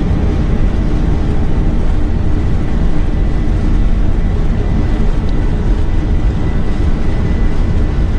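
Boeing 747-200's four jet engines at takeoff thrust and the rumble of the accelerating takeoff roll, heard from the flight deck. A loud, steady low rumble with a thin, steady whine above it.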